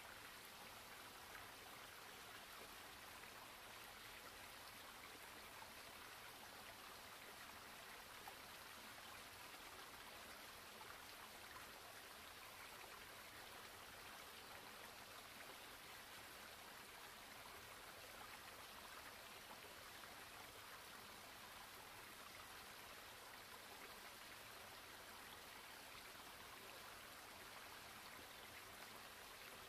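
Near silence: a faint, steady, even hiss with no distinct events.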